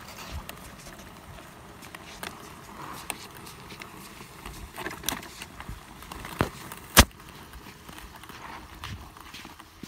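Small caster trolley carrying a water-filled garbage can being pushed over rough pond ice: a steady rolling rattle with scattered clicks and knocks, the loudest a sharp knock about seven seconds in.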